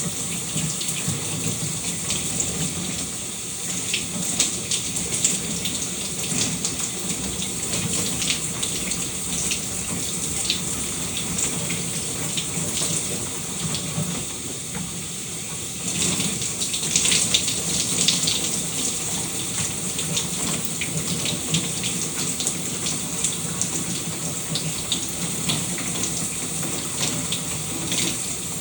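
Shower running steadily, water spraying and splashing, with a brief stretch of heavier splashing in the middle.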